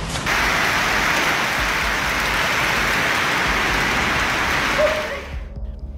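Hailstones falling hard and hitting the ground in a dense, steady patter. It starts suddenly just after the start and fades out about five seconds in.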